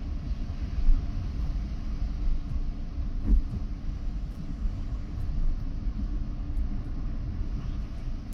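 Steady low vehicle rumble from slow traffic, with two brief knocks, about one second and a little over three seconds in.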